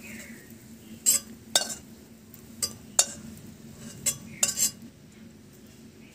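Metal spatula scraping and knocking against a wok and a stainless steel bowl while fried pieces are pushed out of the wok, about seven sharp metal clinks spread between one and five seconds in.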